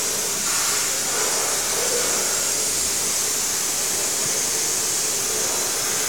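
Steady, even hiss of a running plastic injection moulding machine and workshop machinery, with no breaks or strokes.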